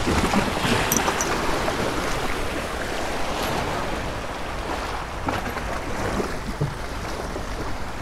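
Small waves washing and breaking against granite jetty rocks, a steady rush of surf, with a couple of faint clicks about a second in.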